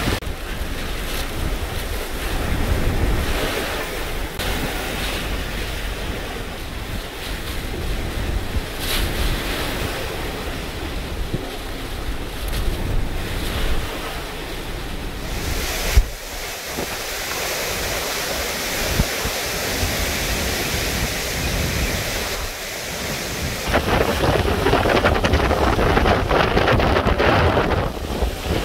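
Hurricane Delta's winds and rain blowing hard, with gusts buffeting the microphone. A single sharp knock sounds just past halfway, and the wind noise grows louder in the last few seconds.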